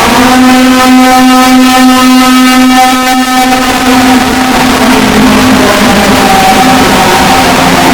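Loud, harsh alarm tone from a made-up Emergency Alert System warning: one steady, low, buzzing pitch held without a break.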